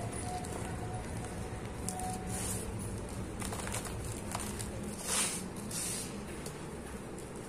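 Dry, crumbly sand-and-cement mix crushed and sifted by hand, grains pouring and crunching onto a heap in a few short rustling spills, the fullest about five seconds in. A steady low hum runs underneath.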